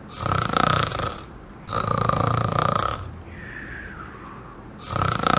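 Snoring: loud rasping snores repeat every couple of seconds, with a soft whistle falling in pitch on the breath in between.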